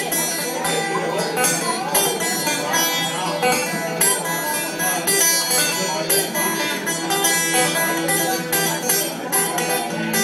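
Fingerpicked blues on a 1963 Gibson J-50 acoustic guitar, amplified through a Fishman Rare Earth soundhole pickup: a steady run of plucked notes and bass strings.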